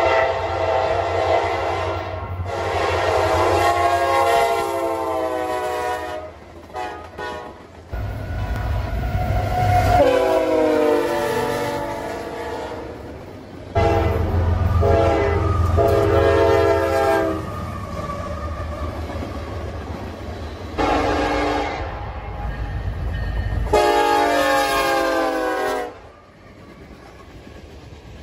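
Diesel freight locomotive air horns sounding a series of long and short blasts, one blast dropping in pitch as the locomotive passes, over the low rumble of the locomotives and rolling train.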